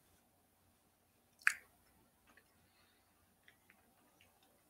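Quiet mouth sounds of people chewing eggnog-flavored milk chocolate: one sharp click about a second and a half in, then a few faint ticks.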